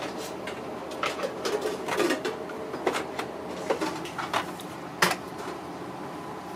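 Wooden chopsticks tapping and scraping as loaches are laid out on a paper-lined metal tray: a run of light clicks, with one sharper knock about five seconds in. A faint steady hum sits underneath.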